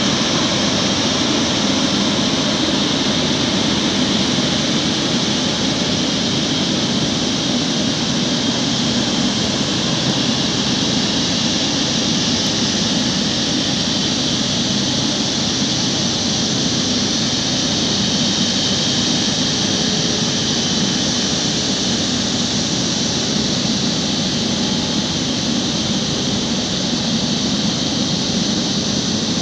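Airbus A350-900's Rolls-Royce Trent XWB turbofan engines running at taxi power as the airliner rolls past. The jet noise is a steady hiss and hum that neither rises nor falls.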